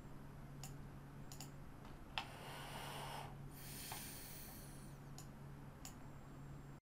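Computer mouse clicking several times at irregular intervals over a faint steady hum, with a breath through the nose about two seconds in. The sound cuts off suddenly near the end.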